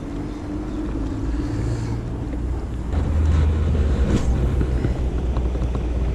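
Wind rumbling on the microphone out on open water, growing stronger about three seconds in.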